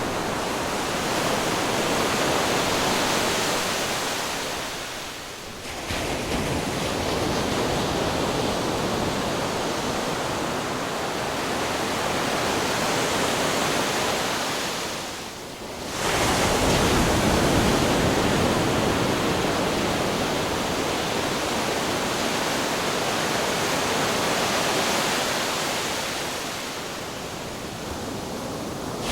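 Ocean waves crashing on rocks: a continuous rushing wash that swells and ebbs, with fresh waves breaking suddenly about a fifth of the way in and again just past halfway.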